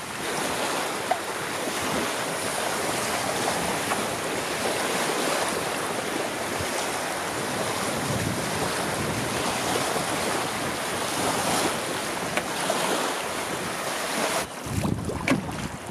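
Steady rush of strong wind in stormy weather, changing abruptly about a second before the end.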